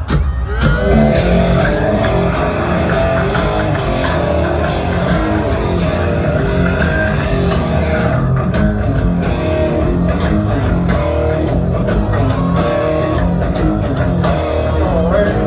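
Heavy rock band playing live: distorted electric guitar over bass and drum kit in a steady groove, heard from out in the audience through the venue's PA.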